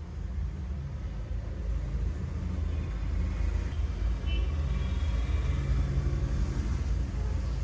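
A steady low rumble that grows a little louder after about two seconds.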